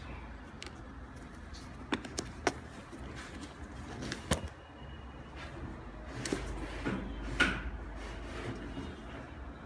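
Hands working the laces and upper of a gold Nike Air More Uptempo sneaker: scattered rubbing and handling noise with a few sharp clicks and taps, the loudest about three-quarters of the way through.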